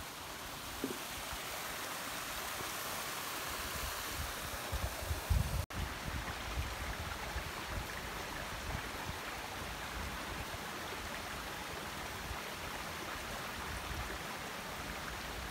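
Mountain river flowing: a steady rush of water, with a few brief low bumps about five seconds in.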